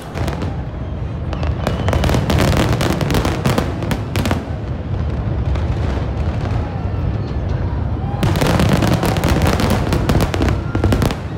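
Aerial fireworks display: rapid crackling cracks and bangs of bursting shells over a low rumble. It comes in two heavy volleys, the first from just after the start to about four seconds in, the second from about eight seconds in until near the end, with a lighter rumbling stretch between.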